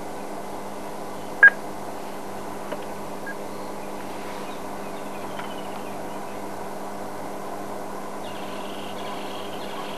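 A steady low hum runs throughout. A single short, high beep sounds about one and a half seconds in, with a few faint chirps near the end.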